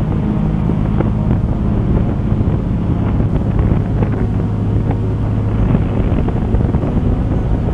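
Fast rescue vessel running at speed: its engines give a steady low drone, with wind buffeting the microphone and rushing water over it.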